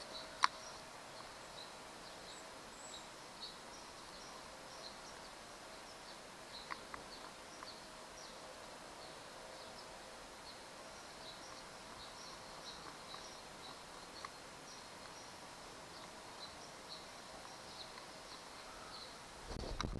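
Quiet outdoor ambience: steady background noise with a faint high chirp repeating every half second or so. A sharp click comes about half a second in, and a few fainter clicks follow later.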